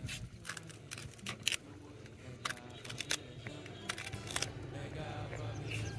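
Knife chopping fresh okra on a cutting board: sharp, irregular taps about a second apart, over background music.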